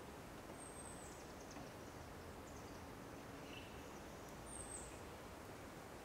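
Quiet outdoor forest ambience: a steady soft hiss of wind through the trees, with a few short, high, falling bird chirps, one about half a second in and one about four and a half seconds in.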